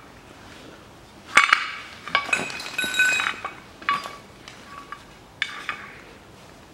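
Metal clinks and clanks as the Land Rover Discovery 3's spare-wheel winch and its steel cable are handled and set down on a concrete floor. A cluster of sharp, ringing clinks comes about one and a half to three seconds in, followed by a few lighter ones.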